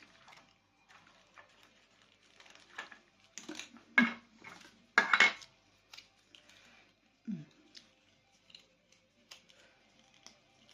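Small hard plastic objects clicking, clattering and knocking together as toys are handled, with two louder knocks about four and five seconds in.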